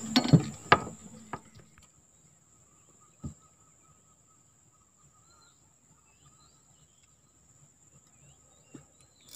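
Fishing rod and reel being handled in a small aluminium boat: a few sharp clicks and knocks in the first second, then a single knock about three seconds in. In between it is quiet, with faint bird chirps and a steady high insect whine.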